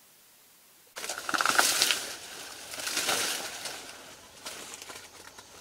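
Dry leaves rustling and crunching, starting suddenly about a second in and dying away over the next few seconds, with a few small clicks near the end.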